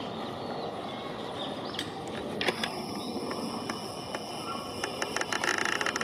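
Outdoor ambience with a steady low rumble, like distant traffic. Near the end comes a burst of rapid, high chattering chirps from birds.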